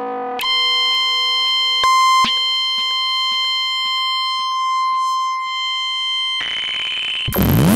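Korg MS-20 analog synthesizer playing a self-triggering patch through delay and reverb. A steady held electronic tone comes in about half a second in, with a couple of clicks and a short louder blip around two seconds. Near the end it changes and breaks into a loud burst of swooping pitch sweeps.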